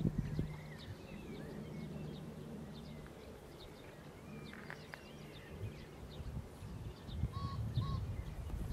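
Outdoor ambience of birds chirping in short, scattered calls, over a steady low rumble. Near the end come two short, lower notes.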